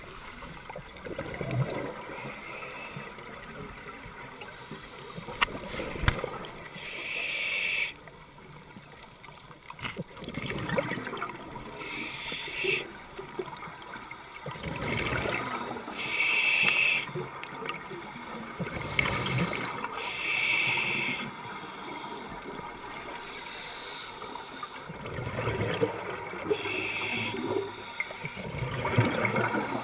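Scuba regulator breathing heard underwater: a hiss on each inhale every four seconds or so, alternating with the low gurgle of exhaled bubbles.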